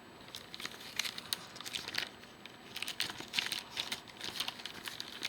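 Toy packaging crinkling and crackling in irregular bursts as it is pulled and worked open by hand.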